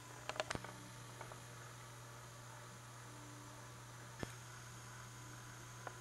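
Quiet room tone with a steady low electrical hum, broken by a quick run of about four faint clicks within the first second and single clicks about four seconds in and near the end.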